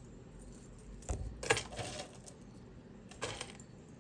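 Small metal jewelry pieces clinking and jingling against each other and the table as they are handled and set down: a cluster of light clinks about a second in, and a shorter one a little after three seconds.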